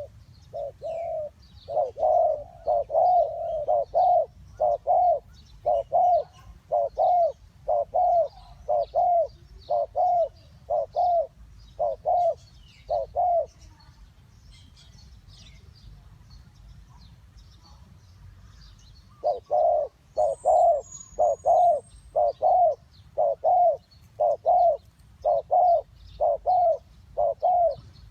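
Spotted doves cooing: a run of short, arched coos at about two a second, which breaks off for about five seconds midway and then picks up again. Small birds chirp faintly and high in the background.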